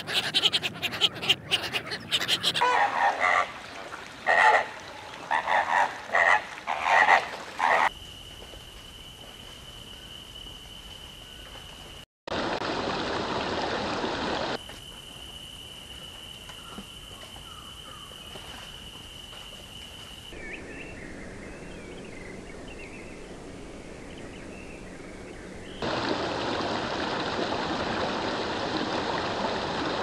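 Several short nature recordings in turn. A flock of ducks quacks loudly for the first eight seconds. After that come a steady high trill, two stretches of loud even hiss, and faint bird chirps.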